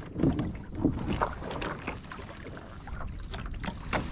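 Water lapping and slapping against a kayak hull, with scattered small knocks and clicks.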